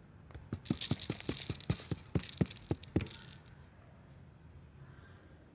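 Rice being put into a frying pan with a utensil knocking against the pan: a quick run of about a dozen sharp taps over two and a half seconds, then they stop.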